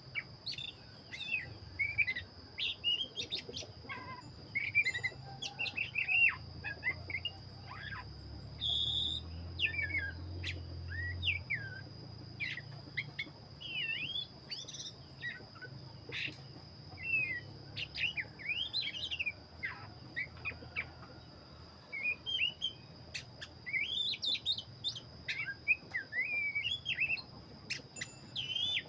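Black-breasted oriental magpie-robin (kacer) in full song: a non-stop run of varied whistled phrases, quick chirps and slurred notes, over a steady high-pitched whine.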